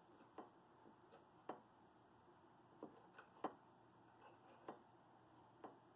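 Faint clicks of a metal fork against a ceramic plate as it cuts soft baked pumpkin, about seven taps at uneven intervals over near silence.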